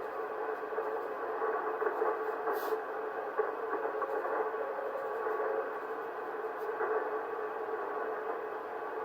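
Amateur radio transceiver's receive audio: a steady hiss of band noise with a weak Morse code (CW) tone running through it, typical of poor band conditions.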